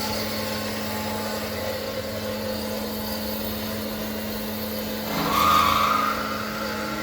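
Metallkraft BMBS 290x290 CNC-F automatic metal-cutting band saw running with a steady hum. About five seconds in a louder, brighter noise rises for about a second, then the steady running continues.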